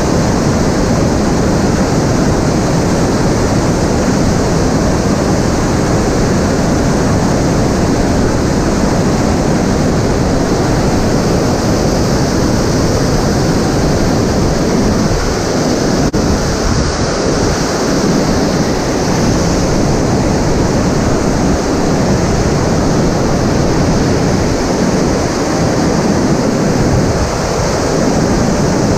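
Fukuroda Falls in flood after heavy rain: a loud, steady rush of falling water.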